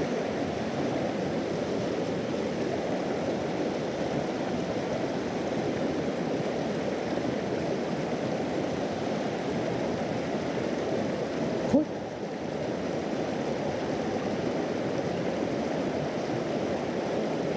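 Mountain stream rushing over rocks through a small riffle, a steady even rush. A single brief knock about twelve seconds in.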